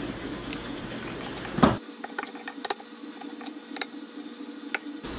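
Breaded chicken shallow-frying in oil in a stainless steel skillet, a steady sizzle, with metal tongs clicking sharply against the pan and a mesh strainer a few times.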